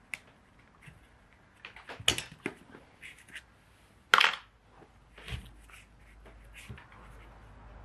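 Light metallic clicks and clinks from small parts being handled on the throttle spindle of a Dellorto DHLA carburettor, irregular and spaced out, with a louder clack about four seconds in.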